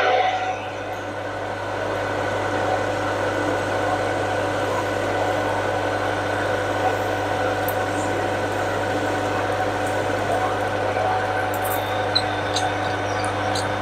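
Metal-turning lathe running at steady speed, a constant hum with a steady whine above it, while it takes a very light finishing cut on a shaft to bring it to a sliding fit. A few faint ticks come near the end.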